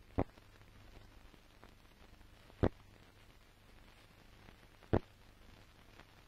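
Three dull thuds about two and a half seconds apart over a faint low hum.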